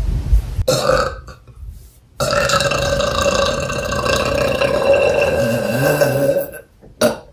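A young woman burping: a short burp about a second in, then one long, steady burp lasting about four seconds.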